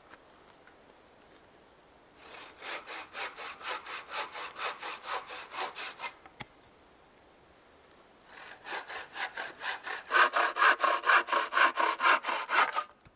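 Wooden frame saw cutting through a green pole with quick, even back-and-forth strokes. Two runs of sawing with a short pause between them; the second run is louder.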